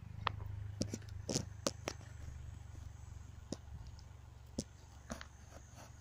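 About ten sharp clicks and snaps, scattered and thickest in the first two seconds, over a low steady rumble.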